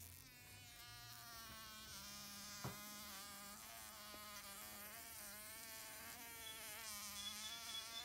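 Greenbottle fly buzzing faintly and continuously, its pitch wavering up and down: the distress buzz of a fly caught and being eaten by a velvet spider.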